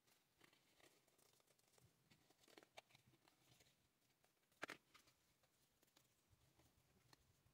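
Faint handling noise of toy house parts being fitted together: scattered light clicks and rustles, with one sharper click a little past halfway.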